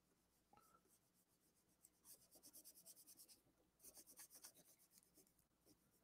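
Faint, quick rubbing of fingertips over paper, smoothing collage paper down onto an ink painting in a spiral sketchbook, in two short spells.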